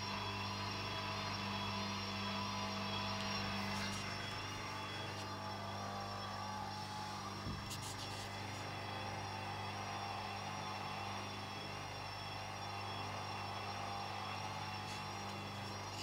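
Hoover Dynamic front-loading washing machine running with its drum turning a wet load: a steady motor hum and a high, slightly wavering whine, with a light knock about halfway through. The machine is trying to spin an unbalanced load held back by too much suds (suds lock).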